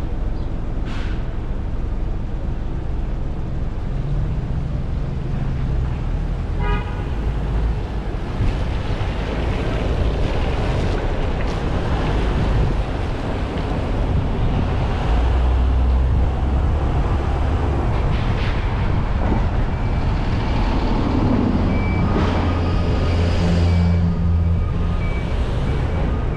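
City road traffic noise, with a brief car horn toot about seven seconds in.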